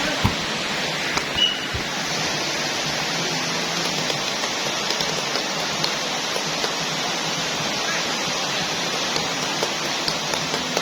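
Steady rain falling, an even hiss with a few faint scattered taps.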